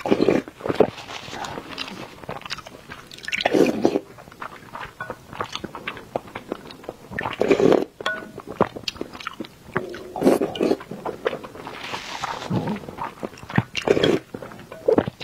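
Close-miked eating of soft boiled eggs in a wet sauce: steady chewing with many small wet mouth clicks and smacks. Louder slurps from a wooden spoon come every few seconds, about six in all.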